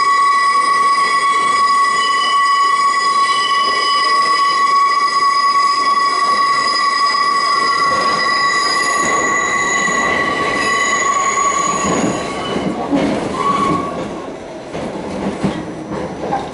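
New York City subway train running through a tunnel, heard from inside the car, its wheels squealing in a steady high screech for about twelve seconds. The squeal then stops, leaving a quieter, uneven rumble and clatter of wheels on track.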